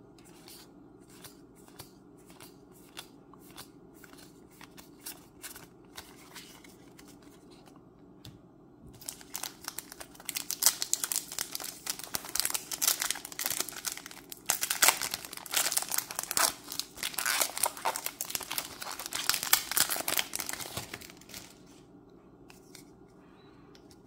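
Trading cards handled with a few light clicks, then from about nine seconds in a long stretch of crinkling and tearing of a booster pack's foil wrapper, which stops about twenty-one seconds in.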